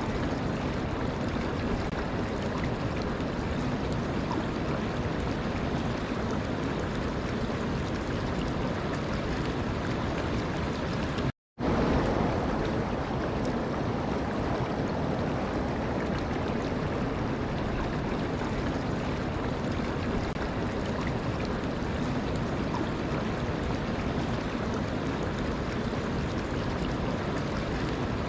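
Steady rushing water. It breaks off to silence for a moment about eleven seconds in, then comes back slightly louder.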